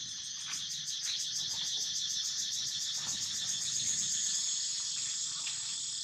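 Steady, high-pitched insect chorus with a fast pulsing trill, and a few faint short ticks or rustles.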